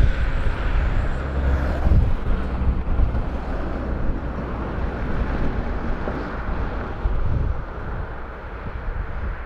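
Wind buffeting the microphone, heard as an uneven low rumble over a steady hiss that eases slightly near the end.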